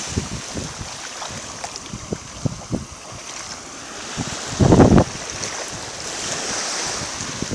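Small waves washing up on a sandy beach, a steady hiss, with wind buffeting the microphone in uneven low rumbles; the loudest rumble comes a little past halfway.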